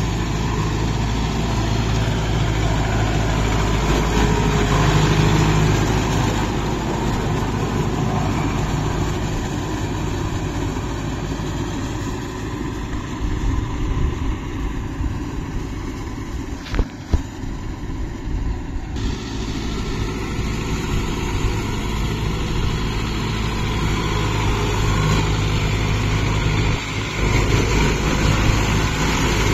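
Kubota tractor's diesel engine running steadily as it pulls a rotavator through wet paddy mud. It grows fainter and duller a little before midway, with two brief knocks, then comes back louder near the end.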